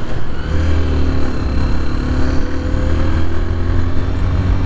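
Honda motorcycle engine running as the bike rides along, with a steady low wind rumble on a helmet-mounted microphone.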